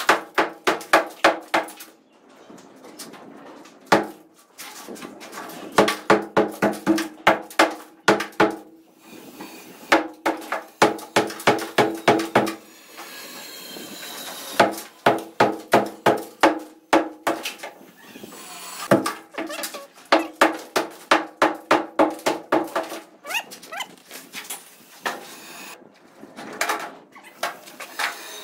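Sledgehammer blows on a concrete wall, breaking away its surface, coming in quick runs of about four strikes a second with short pauses between runs. Each blow has a hard crack with a ringing tone.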